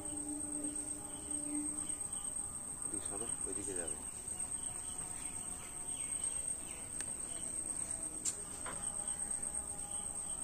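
Insects trilling in one steady, high-pitched, unbroken tone, with faint background sounds beneath.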